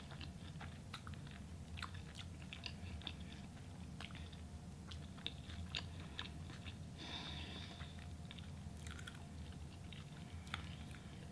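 A person chewing food quietly, with many small mouth clicks and smacks over a low steady room hum.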